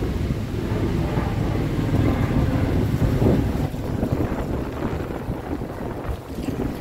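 Wind buffeting the microphone over a low, steady rumble of city traffic.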